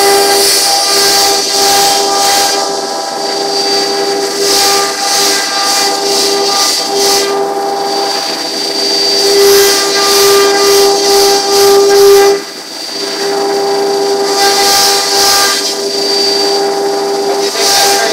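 CNC router cutting into a wooden panel: a steady high spindle whine under hissing cutting noise that swells and fades as the bit moves through the wood. The sound dips briefly about twelve seconds in.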